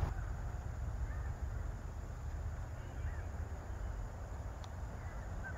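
Outdoor ambience: a low rumble of wind on the microphone, with a few faint bird calls.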